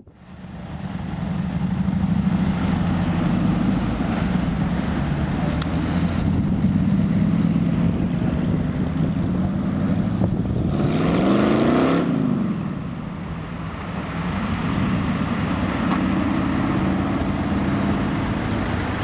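De Tomaso Pantera's Ford 351 Cleveland V8 running loudly. About eleven seconds in it revs up with a rising pitch, then drops back and settles to a steady run again.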